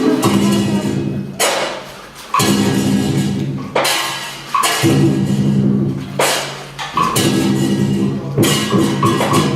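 Traditional Vietnamese water puppet theatre music: a live ensemble with sustained low tones, broken by loud drum strikes with a ringing decay about once every second or so.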